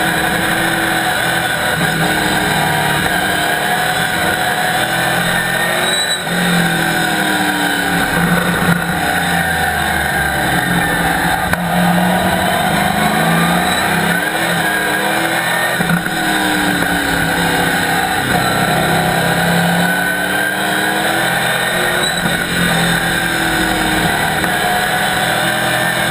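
Chevrolet Camaro race car's ZZ4 small-block V8 running hard, heard from inside the stripped cockpit, its pitch rising and falling again and again as the driver accelerates, changes gear and lifts for corners.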